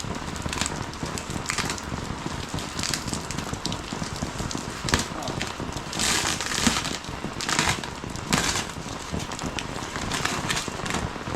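Heavy rain falling steadily, with several short crackling rustles breaking through, the loudest about six to eight and a half seconds in.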